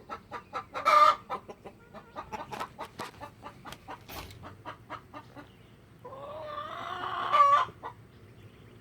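Chickens clucking in a quick run of short notes while pecking at a tomato, with a loud squawk about a second in and a longer, louder call near the end.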